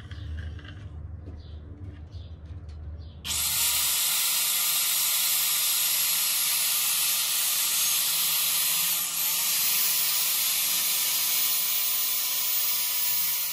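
A SKIL circular saw starts about three seconds in and runs steadily, loud and even, as it cuts along a board, with a brief dip near the middle. Before that, only a low rumble and a few light knocks.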